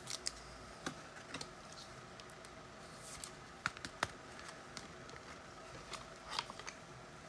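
Faint, scattered light clicks and taps, irregular and a second or so apart, with a couple of sharper ones around the middle.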